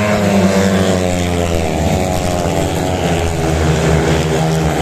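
Several 500 cc single-cylinder speedway motorcycles racing through a bend at full throttle. Their engine note drops over the first couple of seconds as they go by, then holds steady.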